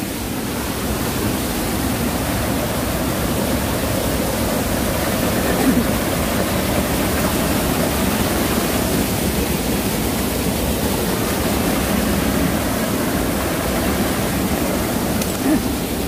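Mountain stream swollen into a flood by heavy typhoon rain, white water pouring over rocks in a steady, loud rush.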